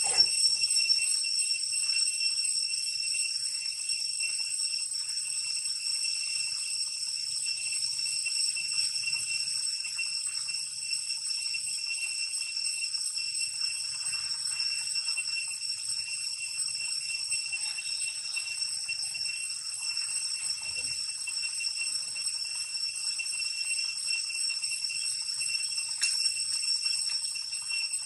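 Steady, high-pitched drone of a cicada chorus, going on without a break.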